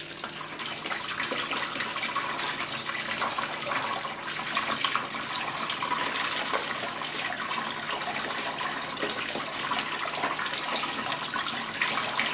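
Tap water running into a sink while okra pods are rinsed under it, with irregular splashing as the water breaks over the pods.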